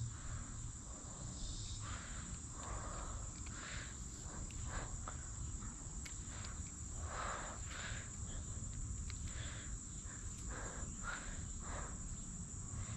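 Insects, crickets by the sound of it, giving a steady high-pitched trill, with scattered short soft rustling noises over it.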